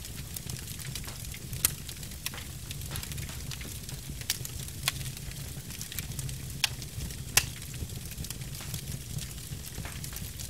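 Fire crackling: irregular sharp pops and snaps over a steady low rumble and faint hiss, the loudest pop about two-thirds of the way through.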